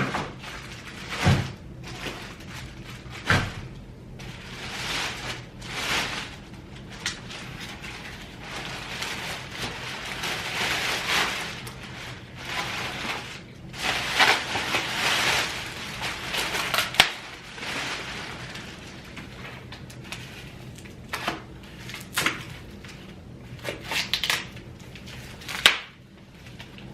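Handling noise from a new stroller being unwrapped and handled: rustling and crinkling of packaging, broken by scattered sharp clicks and knocks of its frame and parts.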